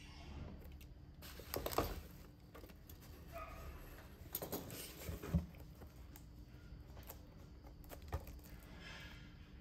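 Boxes being handled and opened by hand: cardboard and plastic rustling, a small blade slicing the seal on a toy's box, and a sharp knock near the end.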